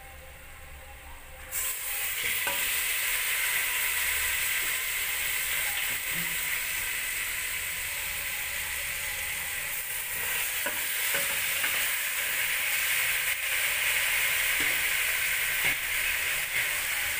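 Bone-in meat pieces dropped into hot spiced oil in a steel pot, setting off a sudden loud sizzle about a second and a half in that keeps going steadily as the meat fries, with a few small clicks.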